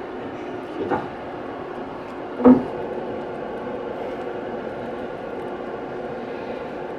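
Steady hum of a lecture hall's room noise picked up through the microphone, with two short thumps about one and two and a half seconds in, the second louder.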